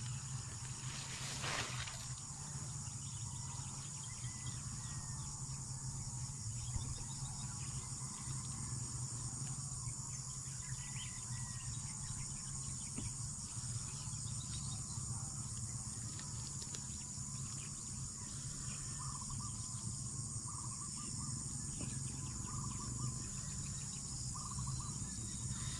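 Steady high-pitched chorus of insects in grassland, with a low steady rumble underneath.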